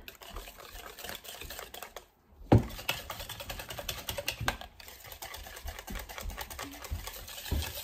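Wire whisk stirring thick pancake batter in a plastic bowl: fast, irregular clicking and ticking of the wires against the bowl. A brief gap about two seconds in, then a sharp knock, the loudest sound, with a smaller knock a couple of seconds later.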